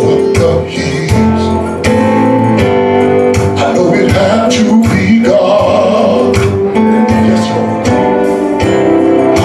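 Man singing a gospel solo into a microphone over instrumental accompaniment with a steady drum beat.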